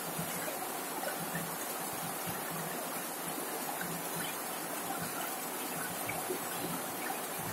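Heavy rain falling steadily on a corrugated zinc roof, a constant even hiss dotted with single drop hits.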